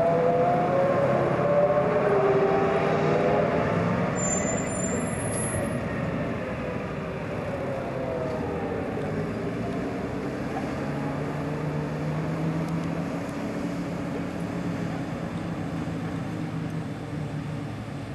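Large truck's engine running as it pulls away, with a whining tone that wavers and slides down in pitch over the first several seconds, over a steady low drone that slowly fades.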